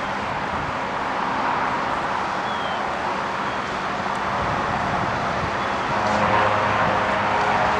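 Strong wind buffeting the camera's microphone: a steady, loud rush of noise.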